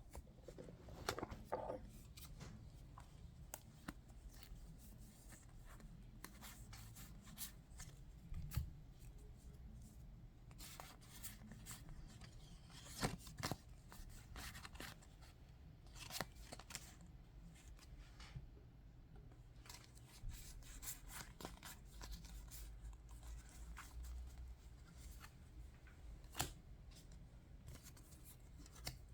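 Yu-Gi-Oh! trading cards being handled and sorted: scattered soft clicks and rustles at irregular intervals, over a low steady hum.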